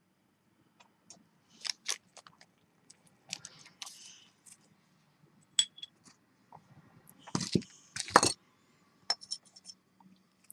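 Small metal tools and pieces being handled on a jeweller's soldering bench: scattered light clicks, taps and clinks, with two louder knocks about seven and eight seconds in.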